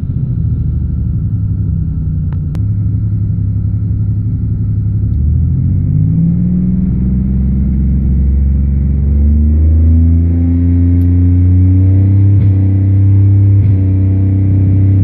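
1999 Pontiac Bonneville's 3800 V6 engine running, its speed rising gradually from about six seconds in and then holding higher. The owner says the engine misfires and sets strange codes.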